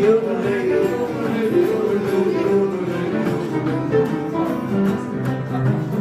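Blues played on an acoustic guitar laid flat across the lap: steady ringing notes with a wavering, gliding melody line on top in the first half.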